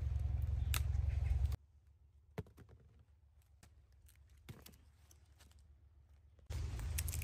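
Wind rumbling on the microphone while persimmons are picked, with a sharp snap about a second in as a fruit comes off its stem. The rumble then stops, leaving scattered light clicks and knocks as persimmons are set into a woven plastic basket, and it returns near the end.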